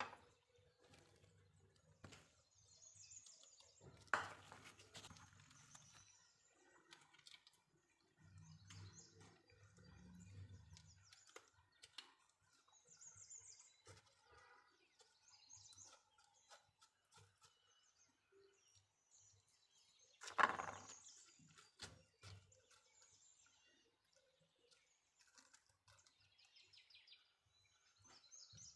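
Near silence: faint birds chirping now and then, with two light knocks on the counter, about four seconds in and about twenty seconds in.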